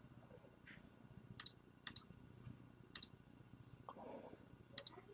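A few sharp clicks, several in quick pairs, from someone working a computer, over a faint low hum.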